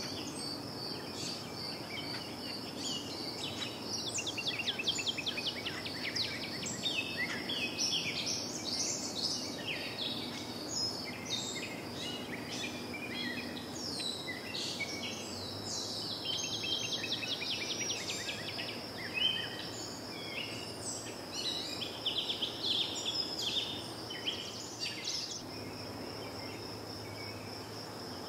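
Several birds chirping and calling, busiest from about four seconds in, over a steady high-pitched pulsing trill and a faint low hum.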